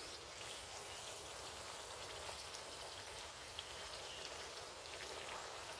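Kachoris deep-frying in hot oil in a kadhai: a faint, steady sizzle with small scattered crackles.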